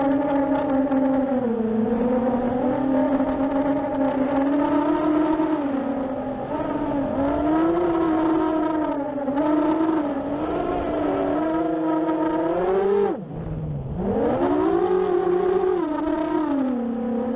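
Motors and propellers of a 7-inch FPV racing drone whining in flight, the pitch rising and falling with the throttle. About 13 seconds in, the throttle is cut and the whine drops steeply, then climbs straight back up as power returns.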